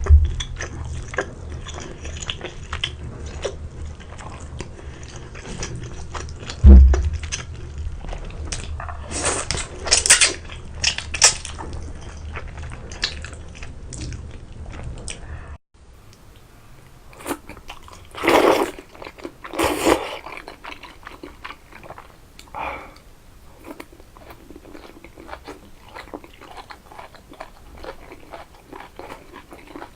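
A person biting and chewing food close to the microphone, with crunchy bites among the chewing and a few louder crunches in the middle.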